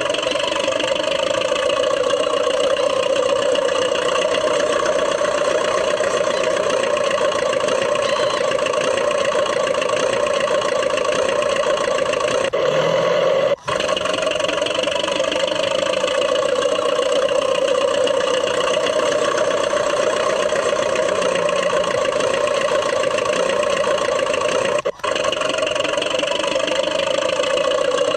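Radio-controlled DT-54 model bulldozer's drive running steadily under load, a constant mechanical whine that breaks off for an instant twice.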